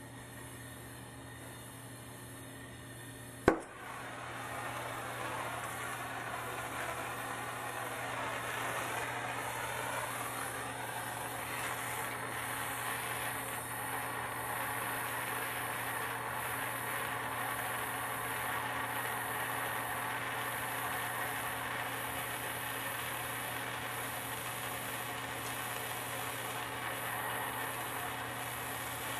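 A sharp click as a handheld gas torch is lit, then the torch flame's steady hiss as it heats a copper elbow joint for sweat-soldering.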